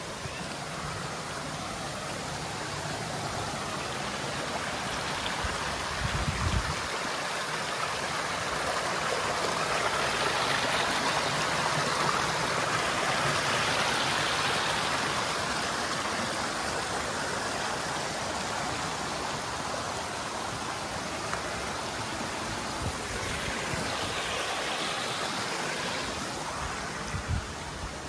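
Small rocky creek running over stones, a steady rushing hiss that grows louder midway and eases off toward the end. A few brief low thumps about six seconds in and near the end.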